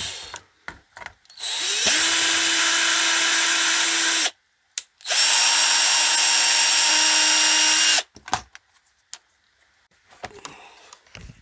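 Electric drill running at a steady speed in two bursts of about three seconds each, with a short pause between them, plus a few small handling clicks before and after.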